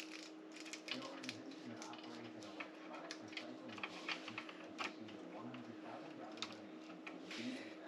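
Irregular small clicks and taps of hands handling and fitting small fishing-gear parts, over a steady low hum.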